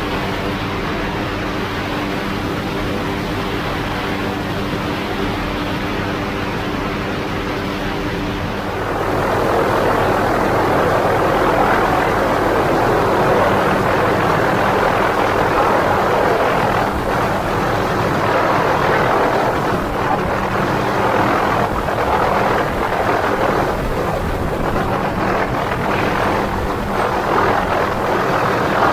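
MD 500D helicopter's turbine engine and rotor running, heard with steady engine tones. About eight seconds in, the tones drop away and a louder rushing noise takes over.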